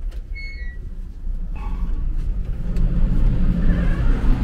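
Steady low rumble of a large ferry's engines and machinery, growing louder after about a second, with a brief high squeak near the start.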